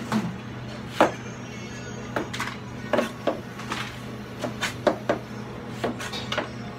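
Broad cleaver chopping an onion on a plastic cutting board: about a dozen sharp, unevenly spaced strikes, over a steady low hum.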